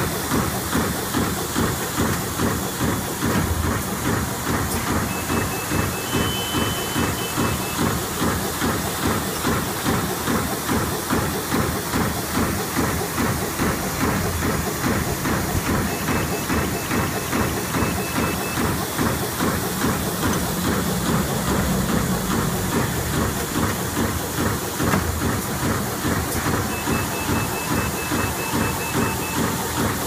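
GUR-IS PS-ROLL 420 plastic bag-making machine running: its sealing and perforating station cycles in a fast, even rhythm of strokes over a steady mechanical noise.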